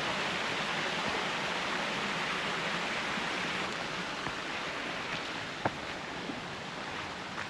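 Steady rushing of running water, slowly fading, with one sharp click about three-quarters of the way through.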